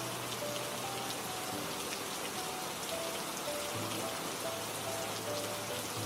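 Steady rain falling, an even patter, from a relaxing rain-sound track. Soft music plays underneath: slow short notes over a low held tone.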